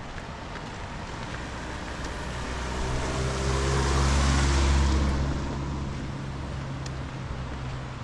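A motor vehicle passing close by: a low engine hum and tyre hiss build up, are loudest about four to five seconds in, then fade away as it moves off.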